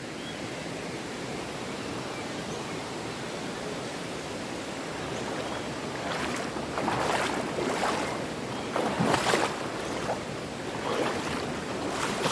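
Clear mountain river rushing steadily over rocks, with louder, uneven surges of splashing from about six seconds in.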